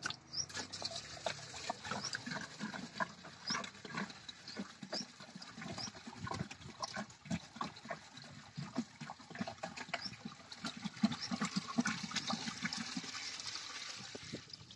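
Cow urine glugging and splashing as it is poured from a plastic jerrycan into a drum of water and cow dung, an irregular gurgling that runs on without a break.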